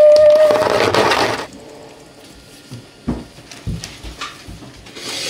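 A woman's held, excited hum, then the cardboard of a small mail parcel being torn open, a loud tearing noise lasting about a second. After that comes quieter rustling of tissue paper and a few light knocks as the open box is handled.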